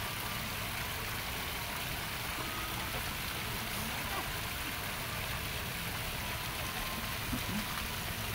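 Steady rush of splashing water from small garden fountain jets.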